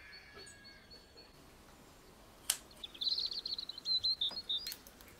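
Small bird chirping: a faint repeated high note at the start, then a fast, high trill of chirps in the second half, with a sharp click just before the trill.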